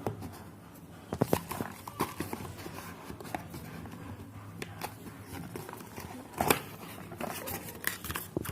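Irregular clicks and taps of small plastic parts being handled, over a steady low hum. The sharpest click comes about six and a half seconds in.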